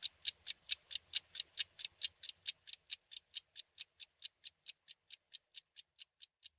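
Clock ticking: sharp, evenly spaced ticks, about four a second, fading gradually toward the end.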